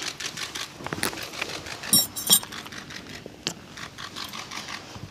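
Scattered sharp clicks and light rustling of people moving in a room, with two loud sharp clicks close together about two seconds in.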